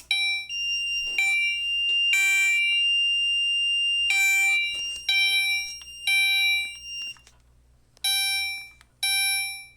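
National Time Commander 3 fire alarm appliance on its chime setting, sounding chime strokes in groups of three with a pause between groups: the temporal-three evacuation pattern. Each stroke rings with several high tones. A steady high tone sounds under the first seven seconds.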